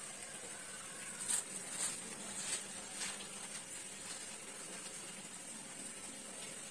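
Tissue paper rustling softly as the layers of a folded tissue-paper flower are pulled apart and fluffed out by hand, with a few short crinkles in the first half, over a steady faint hiss.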